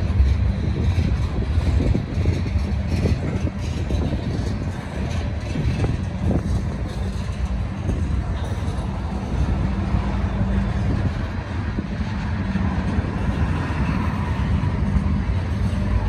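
Freight train cars rolling past: a steady low rumble of wheels on rail with repeated clicking and clacking.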